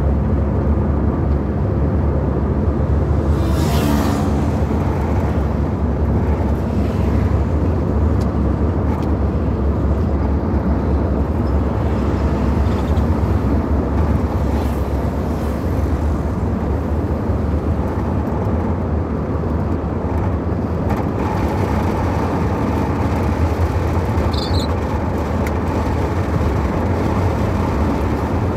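Car driving on a paved road, heard from inside the cabin: a steady low rumble of engine and tyres, with a brief louder rush about four seconds in.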